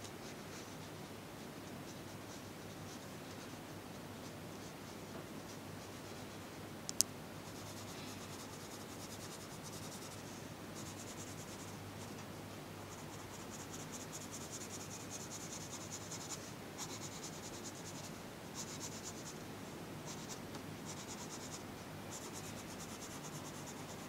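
Colour pencil shading on paper: a faint scratchy rubbing in strokes that come and go, busier in the second half. A single sharp click about seven seconds in.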